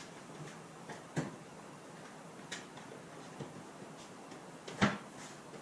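Thin aluminium sheet panel being pressed and shifted by hand on a plywood buck: scattered light clicks and taps, with a sharper knock about a second in and the loudest near the end.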